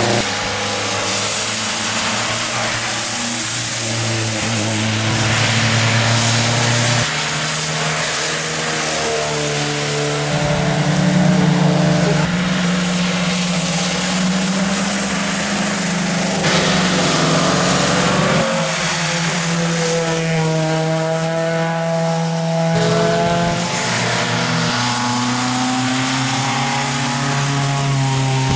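Rally car engines running hard on a wet road as cars pass one after another, the engine note shifting in steps with gear changes. Under them runs a steady hiss of tyres on the wet road and rain.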